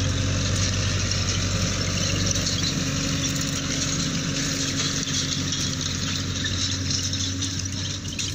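Solis 60 hp 4WD tractor's diesel engine running steadily while pulling a rotary hay rake, with a steady hiss over it. The engine's low hum weakens after about five seconds as the tractor moves away.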